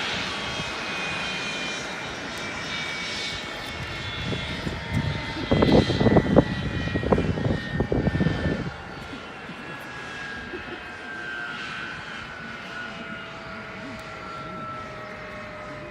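Mitsubishi F-2's F110 turbofan engine winding down after the run: several whine tones fall slowly in pitch. For about three seconds in the middle there is a gusty low rumble that cuts off abruptly.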